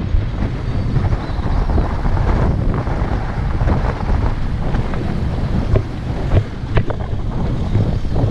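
Wind buffeting the microphone over a low, steady rumble of travel, with a few sharp clicks about six to seven seconds in.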